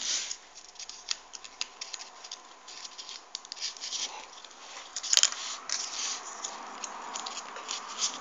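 Folded paper origami units rustling and clicking as a hand works them into the tiers of a 3D origami model: irregular scratchy clicks with one sharper click about five seconds in, over a faint steady hum.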